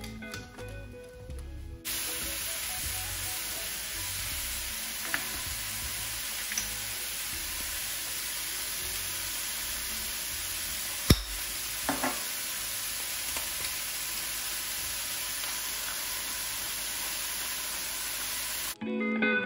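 Mushrooms and cherry tomatoes sizzling in a frying pan, a steady hiss that cuts in about two seconds in and stops shortly before the end. A few light ticks and one sharp click about eleven seconds in.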